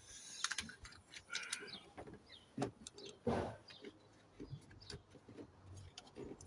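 Scattered light clicks and knocks, as of parts and tools being handled, with a couple of brief high chirps early on and a louder scuffing rustle about three seconds in.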